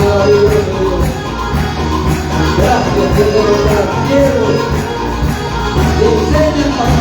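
Upbeat gospel worship music from a band: a voice singing a melody over bass and percussion with a steady beat.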